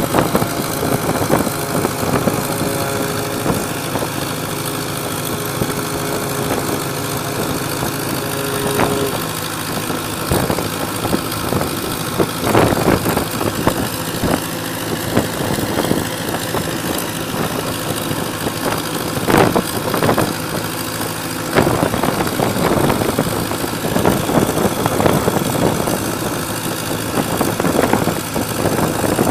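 Fishing boat's open inboard diesel engine running steadily close by, its note changing about nine seconds in. Short loud surges of splashing or wind noise come through over it from time to time.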